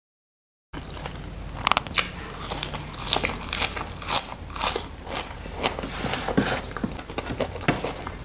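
Close-miked eating: biting into and chewing raw lettuce, with irregular crisp crunches and wet mouth clicks. The sound starts less than a second in, after a brief dead-silent gap.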